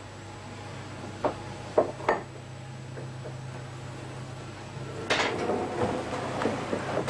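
Three short, sharp knocks of small objects being handled, then a longer stretch of scraping and rustling from about five seconds in, over a steady low hum.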